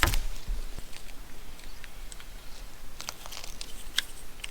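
Parts of a hose-pipe irrigation kit being handled: a sharp knock at the start, then scattered small clicks and crinkling as connectors and spray heads are fitted to the hose.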